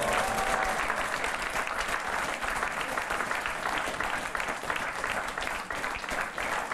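Audience applauding, many hands clapping together at an even level.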